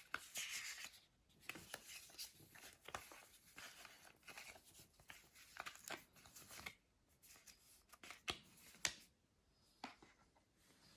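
Faint rustling and crinkling of paper and cardboard packaging being handled, with scattered light ticks and taps, as the contents are taken out of an AirPods Pro box.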